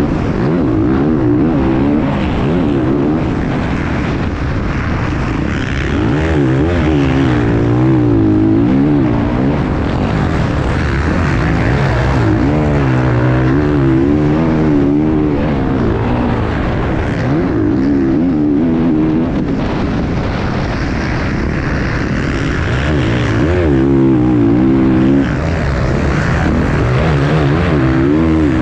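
Enduro racing motorcycle engine running hard, heard from a camera mounted on the bike, its pitch swinging up and down every second or so as the throttle opens and closes and the gears change, over a constant rush of wind and track noise.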